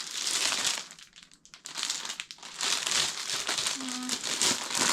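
Packaging being handled and unwrapped, crinkling and rustling in two stretches: a short one, a brief pause, then a longer stretch from about two seconds in.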